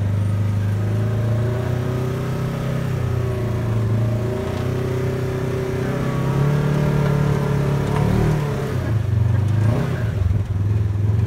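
Off-road buggy engine running steadily as the buggy drives, its pitch shifting about eight seconds in.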